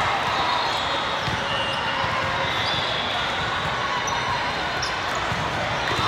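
Steady hubbub of a large hall full of volleyball courts: crowd voices mixed with volleyballs being hit and bouncing on the floors, none of it standing out above the rest.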